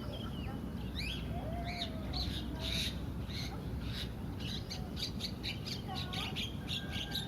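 Starlings chirping and squawking, many short calls overlapping, with a fast run of rapid chirps in the second half, over a steady low background rumble.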